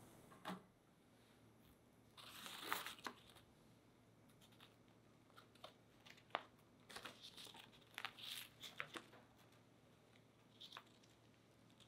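Parchment paper faintly crinkling and tearing as it is peeled off the sides of a freshly baked sponge cake, in short bursts of rustling and crackles, with a soft knock near the start.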